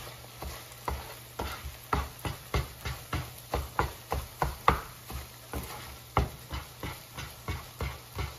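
Spatula scraping and tapping across a nonstick frying pan while eggs are scrambled, about two to three short strokes a second.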